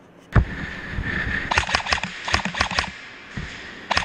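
Airsoft rifle shots: a string of sharp separate cracks, about six in a little over a second, then two or three more near the end, after the sound starts abruptly about a third of a second in.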